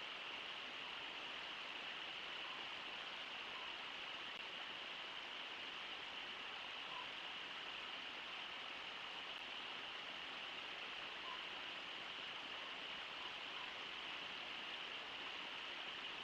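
Steady rush of the Brooks River pouring over Brooks Falls.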